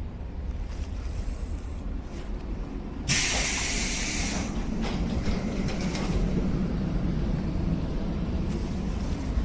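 Steady low rumble inside a JR 115-series electric train car, broken about three seconds in by a loud burst of compressed air hissing from the train's pneumatic equipment for about a second and a half. After the hiss the low rumble grows a little louder.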